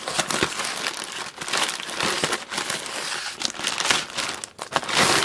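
Crinkly packaging being handled and pulled open: a quick, continuous crackling rustle with a louder burst near the end.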